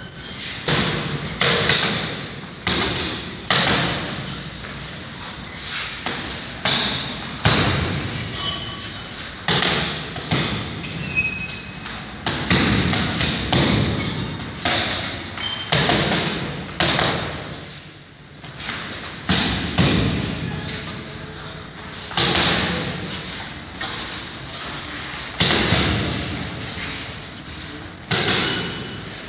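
Gloved punches on a hanging heavy punching bag: quick, irregular flurries of thuds, each hit echoing off the walls of a large bare hall, with a brief lull a little past the middle.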